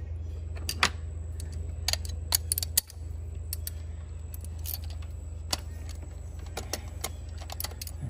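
Scattered metal clicks and clinks of a 9/16 spark plug socket on a long extension with a sliding T-handle, turned in the plug well to loosen a spark plug. A steady low hum runs underneath.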